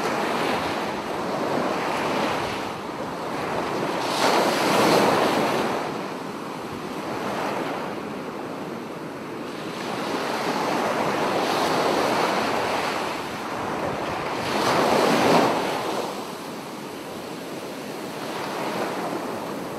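Small sea waves breaking and washing up a shell-and-gravel beach, the surf swelling and falling with each wave and loudest twice, about four and fifteen seconds in.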